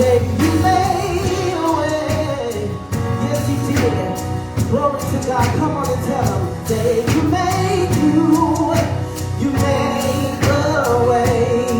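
Gospel praise and worship music: voices singing a melody over band accompaniment, with a steady beat.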